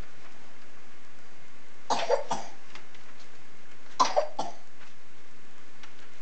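A person coughing: two short bouts about two seconds apart, each of two or three quick coughs.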